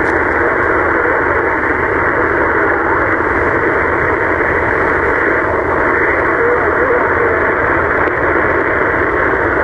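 Portable citizens' band (CB) radio receiving: a steady hiss of static from its loudspeaker, which opens sharply just before and runs on unbroken, with a weak distant station's call faint in the noise.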